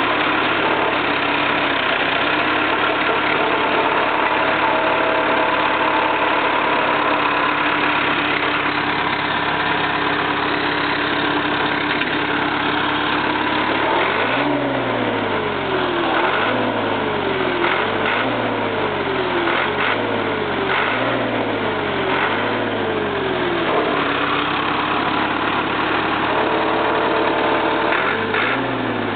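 Jacobsen mower's four-cylinder Perkins engine running steadily. About halfway through, its pitch begins rising and sagging over and over, about every one and a half seconds for some ten seconds, then it settles back to a steady run.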